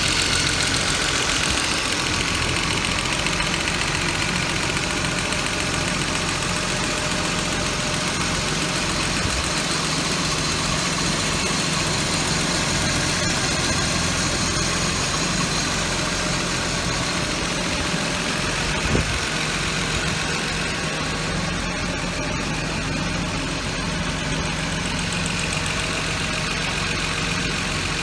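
Car engine idling steadily, with one short knock about two-thirds of the way through.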